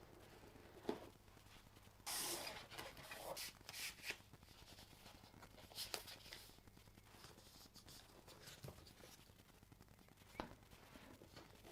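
Quiet handling of a phone box and its packaging: a sharp click about a second in, a rustling scrape lasting about two seconds, then a few scattered soft clicks and taps.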